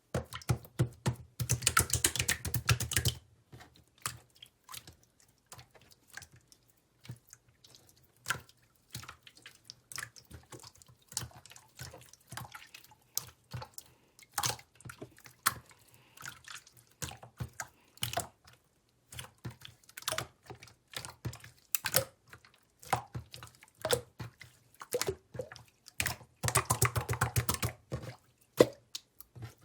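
Watery slime being squished and poked by hand, making a run of small wet clicks and pops, with two bouts of rapid squishing, one near the start and one near the end.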